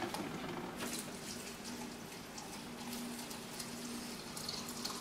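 Water running steadily from a kitchen sink's small filtered-water faucet into a glass measuring cup.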